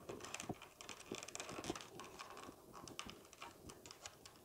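Faint scattered ticks, taps and light rustling as rolled paper tubes are bent, woven and tapped against a plywood weaving board and its wooden stake holders.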